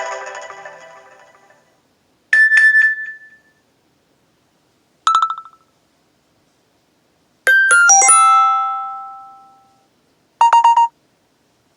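iPhone ringtone and alert tones played through a JBL Flip 3 Bluetooth speaker. A musical ringtone fades out, then a series of short separate chimes follows with silent gaps between them. Near the middle a quick run of several notes rings out, and near the end there is a rapid four-pulse beep.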